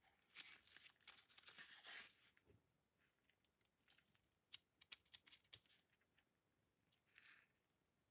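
Faint rustling of textured nitrile gloves handling a Glock 17C pistol, with a run of light clicks about halfway through and a short rustle near the end.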